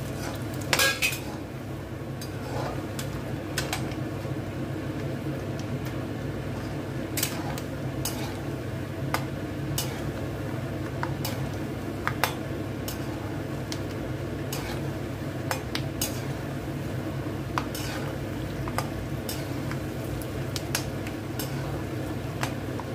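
Peanuts deep-frying in hot oil in a kadhai, a steady sizzle, with scattered clinks and scrapes of a perforated steel skimmer stirring them against the pan.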